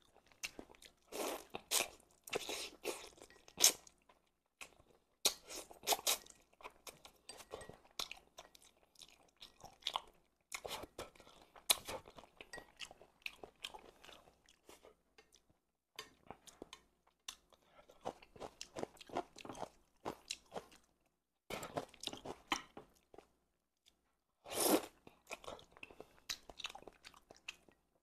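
Close-miked eating of braised chicken heads: wet chewing, sucking meat off the bones and crunching small bones, in clusters of sharp clicks with short pauses between mouthfuls. The loudest is one longer burst near the end.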